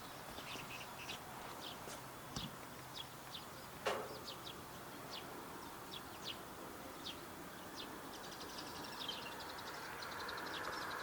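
Small birds chirping repeatedly, with one louder call sweeping sharply down in pitch about four seconds in. Near the end a fast, faint high ticking starts and a low rumble grows as a train approaches on the rails.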